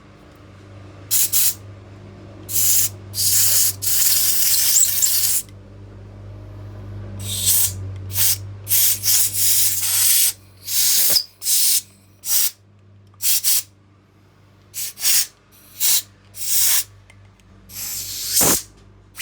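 Compressed-air blow gun hissing in a series of short blasts, with one longer blast of over two seconds about three seconds in, blowing debris out of the passages of an automatic transmission valve body. A steady low hum runs underneath.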